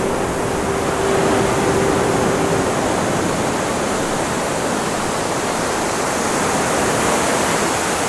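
Storm surf breaking against a breakwater and pier, a steady roar of wind and water. A faint steady tone stops a little under three seconds in.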